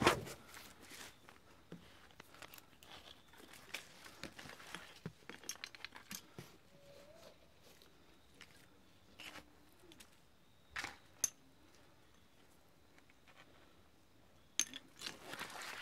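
Climbing gear being handled at a tree anchor: carabiners and metal hardware clinking, and rope and sling rustling and scraping, in scattered small clicks with a sharper clack right at the start and about eleven seconds in.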